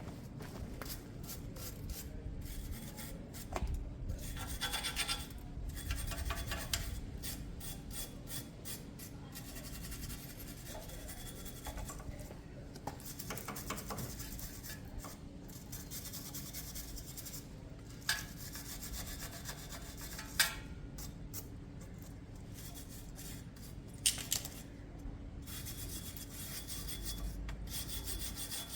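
Scraping and rubbing at old sticker residue on a motorcycle's metal fuel tank, in irregular strokes, over a steady low hum. There are a few sharp clicks, the loudest about twenty seconds in.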